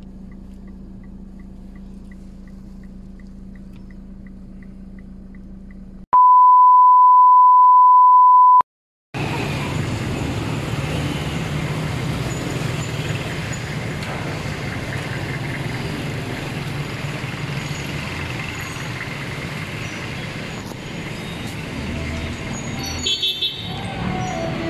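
Steady car-cabin hum with a faint regular ticking about three times a second. Then a loud, steady single-pitch beep for about two and a half seconds, a moment of silence, and street traffic noise.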